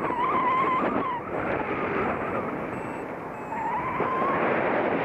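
Wind buffeting the microphone of a camera on a paraglider's risers in flight, a steady rough rushing. A thin, wavering whistle sounds over it in the first second and again for under a second past the middle.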